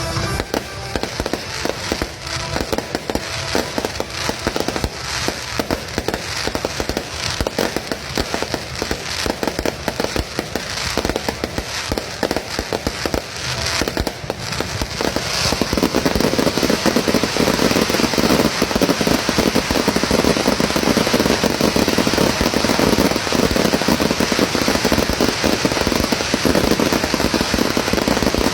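Fireworks going off at close range: a dense, continuous stream of sharp crackling pops that grows louder and thicker about halfway through.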